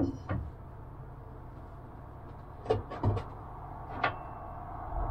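A few short knocks and clicks of a part being handled and set against a plywood aircraft cockpit structure: two near the start, two around three seconds in, and one about four seconds in.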